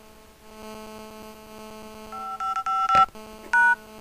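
Touch-tone keypad tones from an HTC HD2 phone on speakerphone: the 5 key pressed four times in quick succession about two seconds in, a click, then the pound key once, entering the voicemail password 5555. A steady electrical hum runs underneath.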